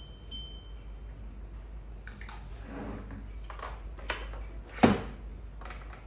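Toy xylophone: one metal note rings out briefly at the start, then comes a run of knocks and clatters as the mallet and small hands bang on the toy's plastic body, the loudest knock about five seconds in.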